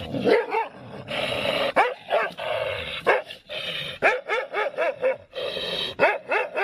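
A dog barking over and over in short calls, coming faster in the second half.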